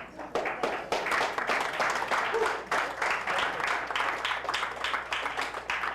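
Audience applauding: a loud, dense patter of many hands clapping that starts suddenly.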